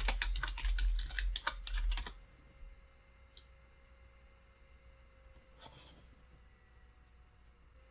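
Typing on a computer keyboard: a quick run of key presses for about two seconds, then quiet with a single click a little later and a short soft hiss about six seconds in.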